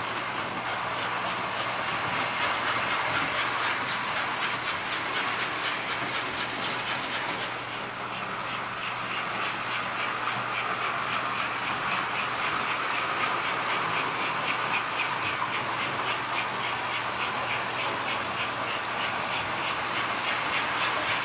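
Two stock American Flyer S-gauge steam locomotives with their original 1950s universal motors, running with freight cars on a small track loop: a steady whir of motors and gearing with wheels on the rails. A fast, regular clicking grows clearer about a third of the way in.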